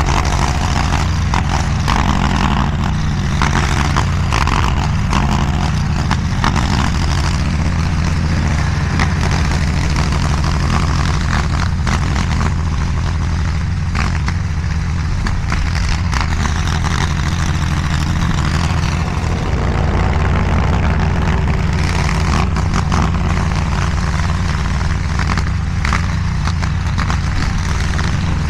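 DIGGIT SCL850 stand-behind mini skid steer's engine running steadily at working speed, with scattered short knocks and clatter over it.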